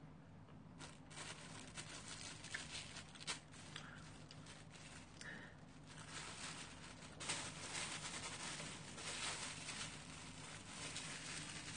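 Plastic food wrap crinkling and rustling, denser and louder from about seven seconds in, with scattered light clicks of chopsticks against takeout containers.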